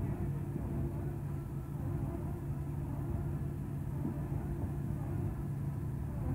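Heavy diesel machinery running steadily with a low, even hum: a Cat MH3022 wheeled material handler working its grapple over a waste shredder that is running.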